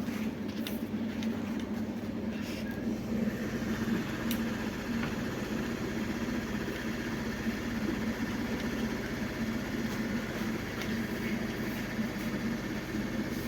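A steady low mechanical hum, like a fan or motor running, with a few light clicks in the first four seconds.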